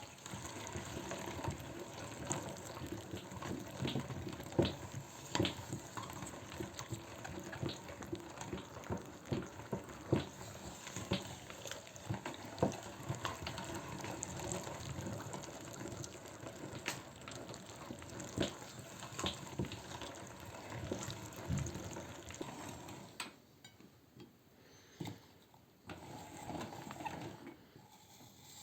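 Meat grinder mincing an apple: dense, wet crunching and crackling with many sharp clicks, dropping away about 23 seconds in to a few scattered clicks.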